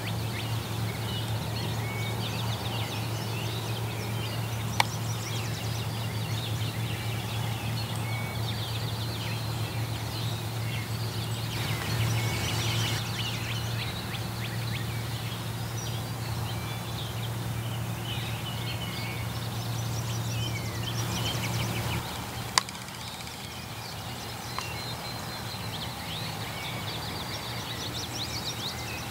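Wild turkeys gobbling in loud bursts over a dawn chorus of songbirds, with a steady low hum that drops away about three-quarters of the way through. Two sharp clicks stand out.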